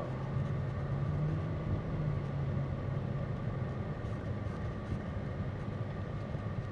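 Cabin noise of a 2003 Mercedes CL600 driving slowly with the windows up: its twin-turbo V12 and the tyres make a steady low hum.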